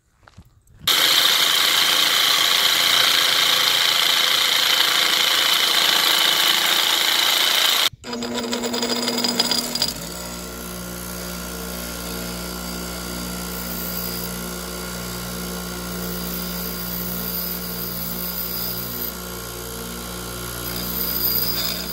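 Bench grinder working on a steel ceiling-fan down rod: a loud, harsh grinding noise for about seven seconds, starting about a second in. It breaks off abruptly, and then the grinder's electric motor hums steadily and more quietly while the tube is held to the wheel.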